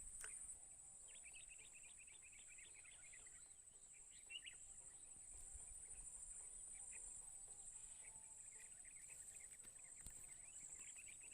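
Faint outdoor ambience: a steady high-pitched insect drone, with bursts of quick bird chirps near the start and again near the end.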